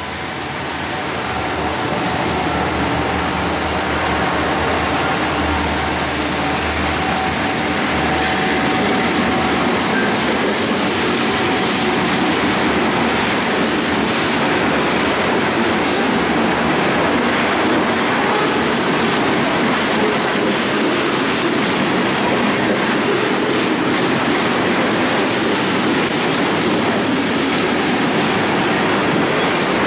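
Ferromex EMD SD40-2 diesel locomotives passing close, their two-stroke V16 engines rumbling, then loaded hopper cars rolling by with a continuous clatter of wheels over the rail joints. A thin, steady, high-pitched wheel squeal runs for roughly the first ten seconds.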